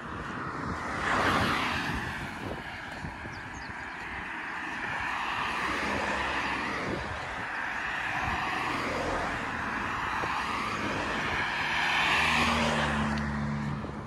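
Cars passing one after another on the asphalt road close by, their tyre noise swelling and fading several times. The loudest pass, near the end, carries a low engine hum.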